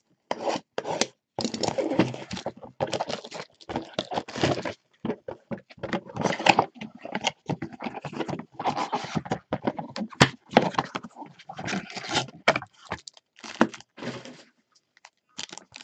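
Cardboard trading-card mega box being opened by gloved hands and its plastic-wrapped packs pulled out and stacked. The tearing, rustling and crinkling is irregular and scratchy, and it stops near the end.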